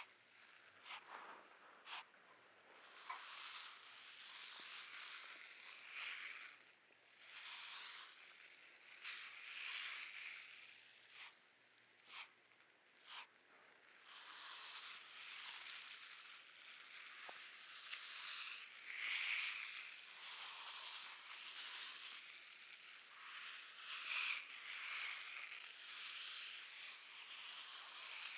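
Dry, rasping scratching strokes over a person, swelling and fading every few seconds, with a few sharp clicks in the first half.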